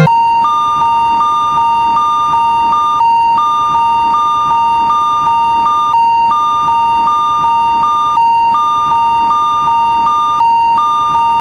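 Electronic railroad crossing warning alarm, as in a cartoon level crossing: a steady tone with a slightly higher tone beeping on and off over it about three times a second, in runs broken by short pauses, over a steady noise.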